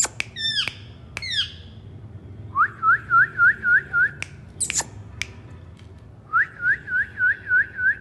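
Indian ringneck parakeet whistling two runs of six short, evenly repeated notes, one about two and a half seconds in and one near the end, after a few short falling calls at the start; a few sharp clicks fall in between.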